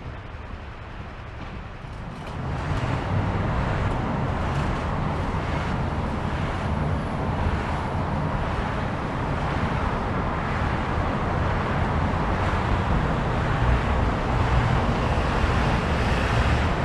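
Road traffic on a busy city street: engine and tyre noise from passing vehicles, growing louder about two and a half seconds in and then holding steady.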